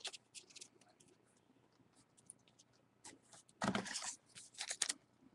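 Trading cards and card packs being handled: light clicks and taps, then a louder rustling crinkle about three and a half seconds in as a wrapped pack is pulled from the cardboard box.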